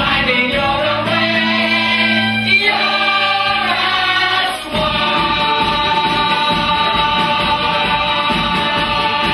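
Stage-musical cast singing together in chorus with musical backing. A little under halfway through, the low bass notes drop out and the voices hold a long, full chord.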